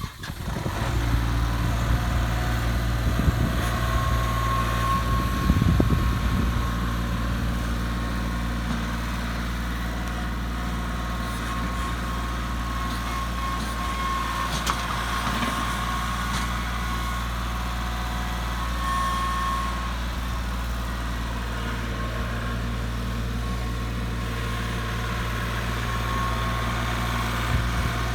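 Kubota tractor engine running steadily at a constant speed, with a thin steady whine over it and a few louder knocks about four to six seconds in.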